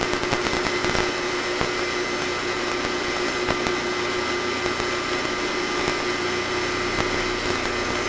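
A small electric motor running steadily, a constant whir with a steady hum, unchanged in pitch.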